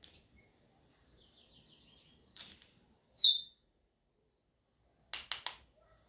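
African grey parrot whistling: a faint wavering warble, then about three seconds in a loud, short whistle that slides sharply down in pitch. Three quick clicks follow near the end.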